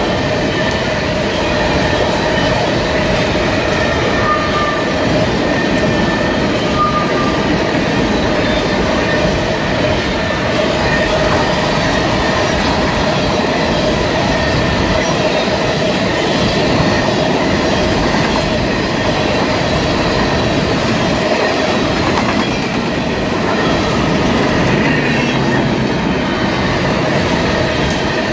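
Freight train of covered hopper cars passing close at speed: a continuous rumble and clatter of steel wheels over the rail joints, with a steady whine running over it.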